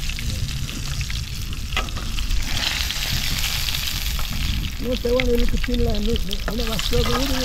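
Fish frying in hot oil in a skillet over a wood fire, a steady sizzle that gets stronger a few seconds in, with a metal spatula scraping and tapping the pan as the fish is turned. A person's voice sounds from about five seconds in.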